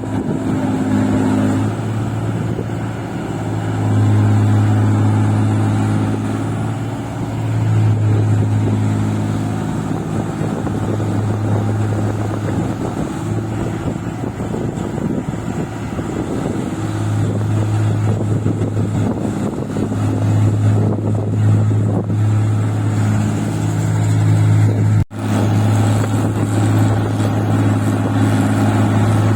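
Engine of a walk-behind paddy tractor running under load as it works deep, muddy rice-field soil. The steady drone swells and eases every few seconds, and cuts out for an instant about 25 seconds in.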